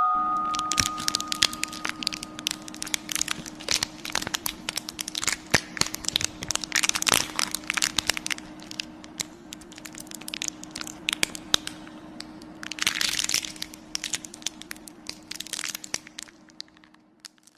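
Dense, irregular crackling and snapping over a faint, steady low hum, with a couple of louder hissing swells, one about 13 seconds in.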